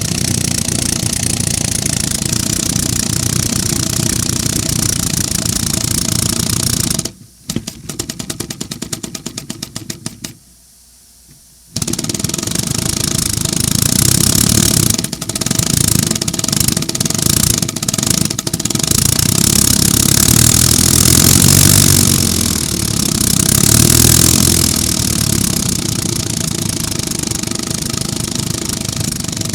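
A 3D-printed compressed-air piston engine running, a loud hiss of air with rapid mechanical clatter. About seven seconds in it cuts out, leaving a quick, even string of clicks for about three seconds and then a second or so of quiet. It then starts running again, its level rising and falling.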